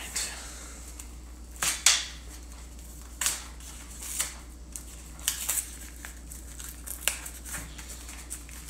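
Protective packaging being pulled and stripped off a new fishing rod: a series of short scratchy rustles and rips, the loudest about two seconds in.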